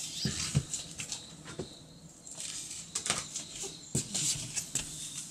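A cat brushing right up against the microphone: rustling fur with a few soft knocks, several near the start and two more about three and four seconds in.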